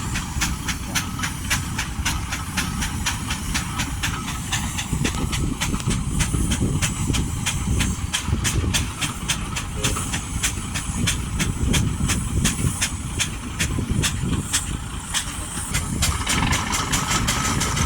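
Steam traction engine working, with a fast, even exhaust beat of several chuffs a second over a low rumble and steam hiss. The hiss grows brighter near the end.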